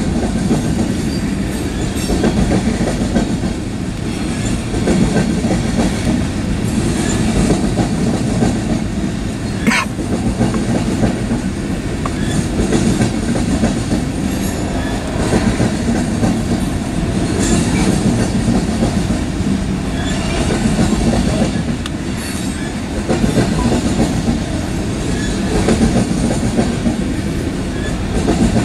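Coal cars of a Union Pacific coal train rolling past: a steady rumble and clatter of steel wheels on the rails, rising and falling every few seconds, with one short high squeak about ten seconds in.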